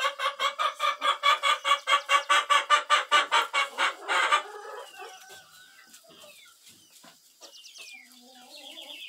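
A chicken clucking in a fast, steady run of clucks at one pitch, about five or six a second, which stops about four seconds in. After it come fainter scattered high chirps.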